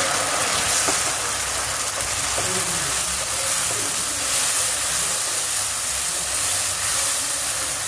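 Tomato purée and golden-fried onions sizzling steadily in hot oil in a non-stick kadai as they are stirred with a wooden spoon.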